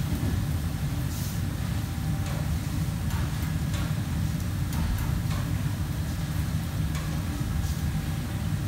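Commercial kitchen ambience: a steady low machine hum with faint, scattered clinks and ticks of utensils and pans.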